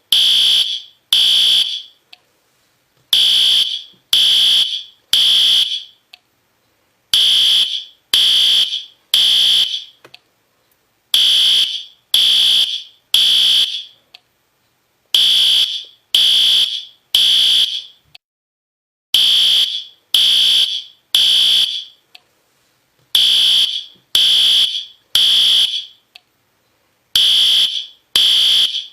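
System Sensor P2R fire alarm horn sounding the temporal-three evacuation pattern: loud, high-pitched electronic beeps in groups of three, a group about every four seconds.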